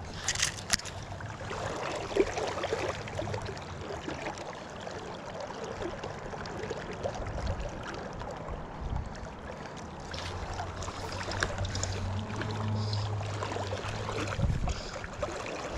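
River current rushing and burbling over a shallow rocky run, heard close to the water surface. There are a few sharp clicks just after the start, and a low steady hum joins for a few seconds in the second half.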